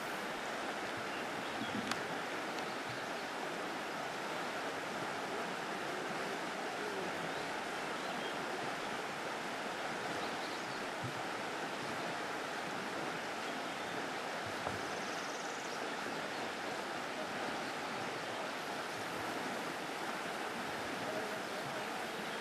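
River water rushing steadily over riffles: an even, unbroken hiss.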